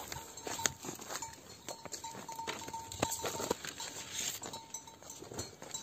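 Footsteps on a dry, littered path: irregular short scuffs and knocks, with a faint short high note recurring every half second or so.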